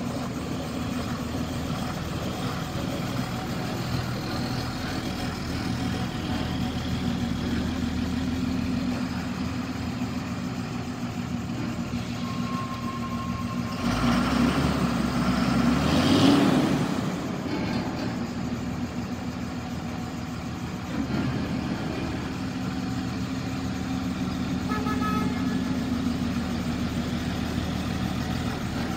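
Diesel engine of a step van idling steadily, swelling louder briefly about halfway through before settling back, heard inside a large warehouse.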